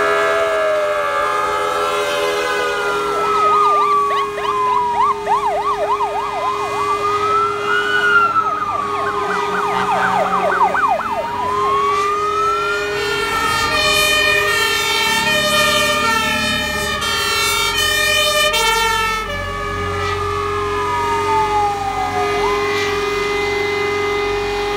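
Sirens of a convoy of fire engines driving past one after another: slow rising-and-falling wails, a fast yelp from about 4 to 11 seconds in, and a rapid alternating-tone siren from about 14 to 19 seconds in, over the low rumble of the trucks' engines.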